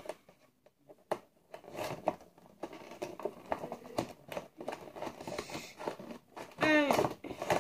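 Plastic and cardboard packaging of a Monster High doll box crinkling and clicking as it is handled and pulled at to work the doll loose. A short hum-like vocal sound comes near the end.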